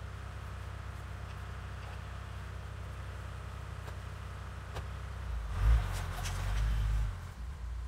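Toyota Land Cruiser 80's petrol straight-six idling steadily. About five seconds in there is a short low thump, then the engine revs for a couple of seconds as the vehicle pulls away, and it settles back near the end.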